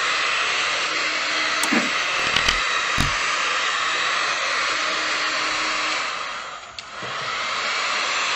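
Loud, steady rushing noise with a few faint clicks in the first half. It dips briefly about two-thirds of the way through, then comes back.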